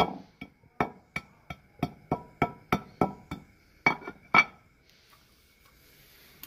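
Claw hammer pounding tablets to powder in a glazed earthenware bowl: quick sharp knocks about three a second, each leaving a high ring from the bowl. The knocking stops about four and a half seconds in.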